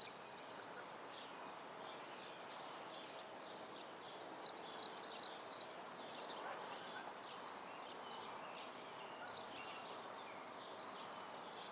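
Birds chirping, many short high chirps over a steady hum of outdoor background noise.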